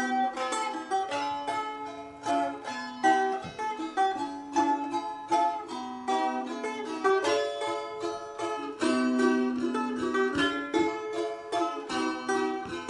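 Balalaikas played together: fast, even strummed strokes under plucked melody notes.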